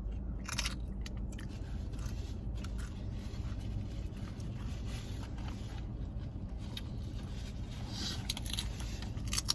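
A person taking a big mouthful of a burrito bowl and chewing, with scattered crackles and crunches about half a second in and again toward the end. Underneath is the steady low hum of a car running with its air conditioning on.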